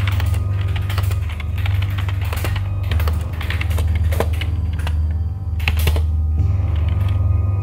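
Typing on a computer keyboard: irregular runs of key clicks. Under it, a low sustained music drone that shifts to a different note about six seconds in.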